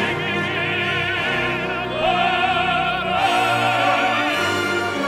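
Background music: an operatic voice singing held notes with a strong vibrato over orchestral accompaniment.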